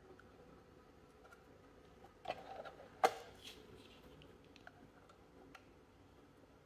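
Handling noise from a metal-cased solar charge controller: a brief scrape about two seconds in, then a single sharp knock as the unit is laid flat on the table, followed by a few faint light clicks.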